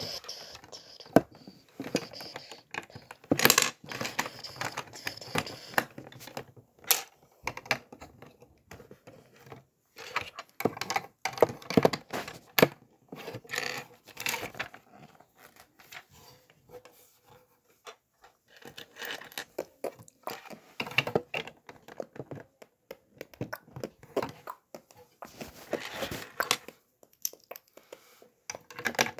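Plastic Lego pieces being handled and pressed together: irregular clicks and small rattles with rustling, easing into a short lull about halfway through.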